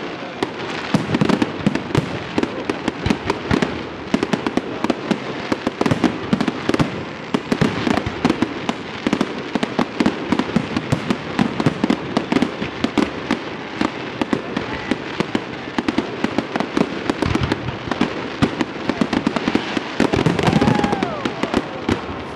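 Fireworks display: a dense, continuous barrage of aerial shells bursting, many sharp bangs and crackles in quick succession.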